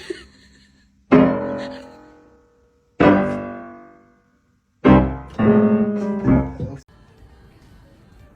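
Piano music: loud struck chords about every two seconds, each ringing and fading away, then a quicker run of notes that cuts off suddenly about seven seconds in.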